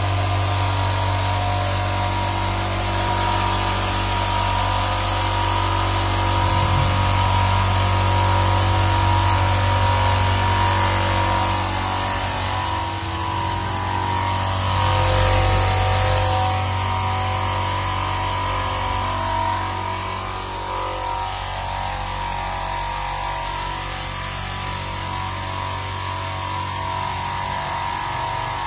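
Airbox ECO50 oil-free 50-litre, 230 V air compressor running steadily: a constant electric-motor hum with a higher tone over it, easing slightly about two-thirds of the way through.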